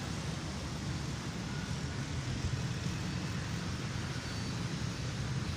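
Steady low rumble with an even hiss above it: outdoor background noise.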